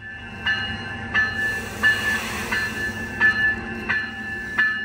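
Bell ringing steadily, about three strikes every two seconds, over the running noise of a COASTER push-pull commuter train arriving cab car first.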